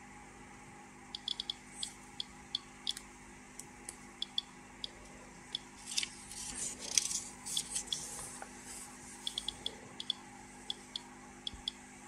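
Geiger-counter dosimeter clicking at random intervals, one to three sharp clicks a second, each registering a detected particle. Denser crackling and rustling noise from about halfway through for roughly two seconds.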